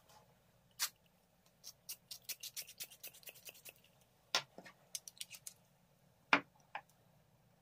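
Light clicks and taps of hands working a fountain pen and ink tools over paper on a wooden table while spattering ink. There is a quick run of small clicks in the middle, and single sharper knocks about one second, four and a half seconds and six and a half seconds in, the last the loudest.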